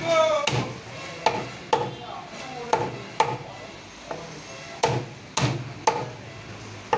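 Heavy knife chopping through silver carp pieces on a wooden cutting block: about nine sharp thuds at uneven intervals.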